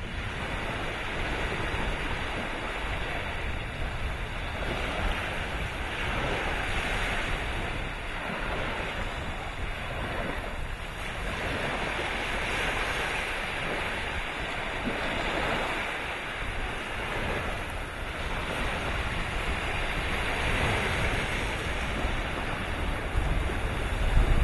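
Small waves washing in over a shallow sandbar, a steady surf that swells and ebbs every couple of seconds. Wind buffets the microphone, most strongly near the end.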